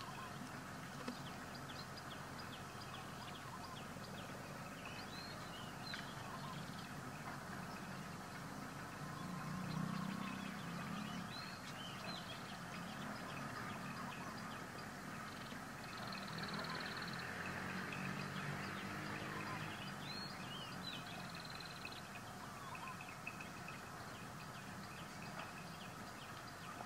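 Many short, high chirping animal calls scattered over a steady outdoor background, with a low rumble that swells twice.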